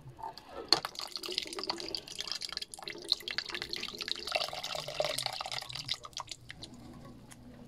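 Evaporated milk pouring from an opened can into a pot of liquid: a trickling, splashing stream that starts about a second in and stops about six seconds in.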